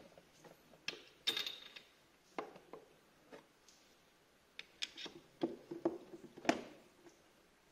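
Scattered metallic clicks and clinks of a spark plug socket and the screwdriver used as its tommy bar, handled against a scooter engine. They come at uneven intervals, and the sharpest clink is about two-thirds of the way through.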